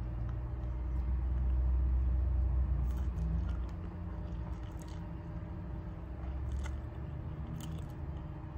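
A person eating instant ramen noodles with a fork: chewing and slurping, with a few short wet mouth clicks. A low rumble, loudest in the first few seconds, lies under it.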